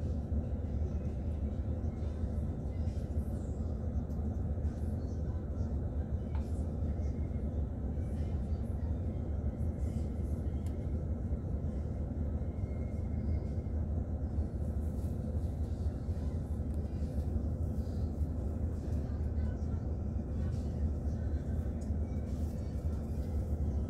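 Steady low diesel rumble of an intercity coach's engine, heard from inside the passenger cabin as the coach idles or creeps at walking pace.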